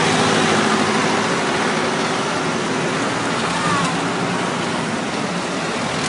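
Tractor engines running together as the tractors set off on a road run, a steady mechanical din with a low engine drone underneath.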